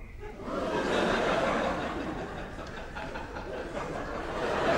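Theatre audience laughing: the laughter builds about half a second in, eases a little, then swells again near the end.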